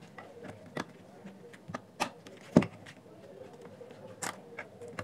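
Scattered light clicks and taps of a plastic Bluetooth speaker housing and its parts being handled and fitted by hand, the sharpest knock about two and a half seconds in.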